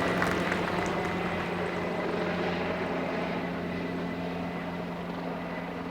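Mountain rescue helicopter flying past, a steady rotor and engine drone that slowly fades as it moves away.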